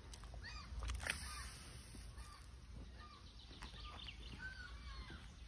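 Small wild birds singing, with many short chirps and whistled notes, and a brief sharp noise about a second in.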